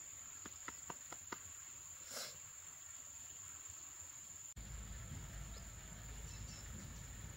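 Faint, steady, high-pitched drone of insects, with a few soft clicks in the first second and a half. About four and a half seconds in, a low rumbling background noise comes in abruptly while the insect drone carries on.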